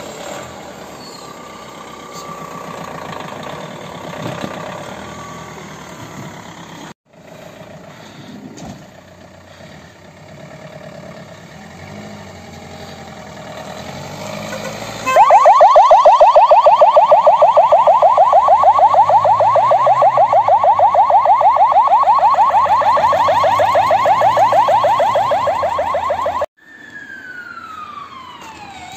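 Fire-service van's electronic siren sounding a loud, fast yelp, starting about halfway through and cutting off suddenly. Near the end a slower wailing siren sweep rises. Before the siren, a quieter stretch of vehicle and outdoor noise.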